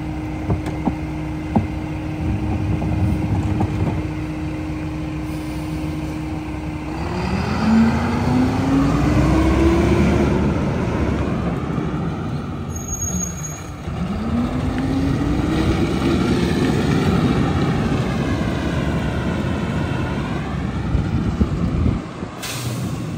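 Mack Granite garbage truck's diesel engine idling with a steady hum and a few knocks. About seven seconds in it revs as the truck pulls away, rising in pitch through one gear, dropping at a shift, then rising again through the next. Near the end a short burst of air-brake hiss comes as it stops.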